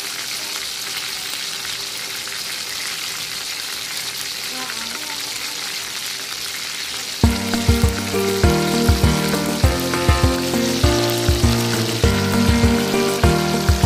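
Stuffed milkfish frying in a pan, a steady hiss of sizzling juices and oil. About seven seconds in, background music with a steady beat comes in over the sizzle.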